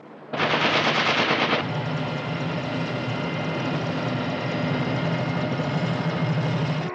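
A burst of rapid automatic gunfire lasting about a second, followed by a steady mechanical drone with a low hum that holds until it cuts off near the end.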